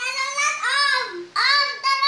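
Children chanting in high sing-song voices, a string of short rising-and-falling calls: the telolet chant that begs a truck driver to sound his musical horn.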